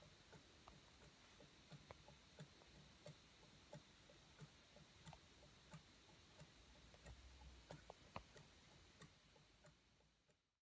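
Large Haynes Stirling hot-air engine running on its burner, giving a faint, fairly regular tick about three times every two seconds over a soft steady hiss. The sound fades out near the end.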